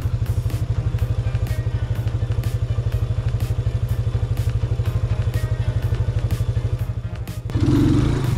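Motorcycle engine running steadily at low speed, with an even pulsing exhaust beat; near the end it briefly grows louder.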